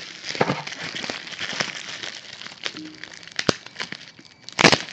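Plastic bubble wrap crinkling and crackling as it is unwrapped by hand, with many small sharp crackles and one louder burst of crinkling near the end.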